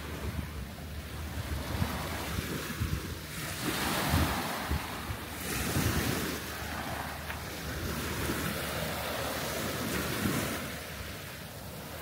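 Small waves breaking and washing up a coarse, shell-grit beach, the wash swelling loudest about four to five seconds in. Wind rumbles on the microphone underneath.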